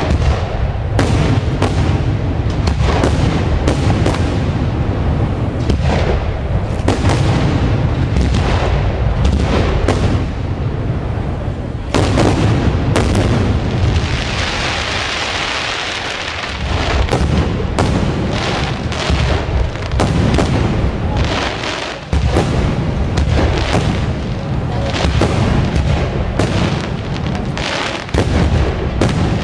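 Aerial fireworks shells bursting in rapid, overlapping succession, a continuous barrage of booms. About halfway through, a few seconds of hissing crackle rise over the booms.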